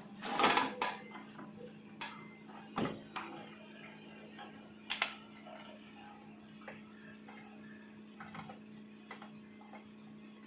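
Scattered sharp clicks and knocks, the loudest about half a second in, over a steady low hum.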